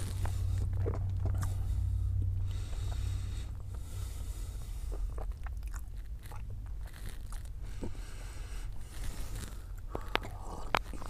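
Close-up mouth sounds of a man chewing a chocolate-coated pastry tube with cottage cheese filling and sipping coffee from a small paper cup, with scattered sharp clicks, several near the end. A low hum sits under the first few seconds.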